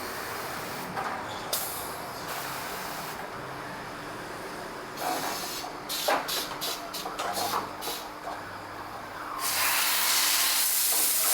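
Compressed air hissing from pneumatic tyre-changing equipment while old tyres are worked off the rims. There are a few short blasts, then a quick run of short puffs, and near the end a loud, steady hiss.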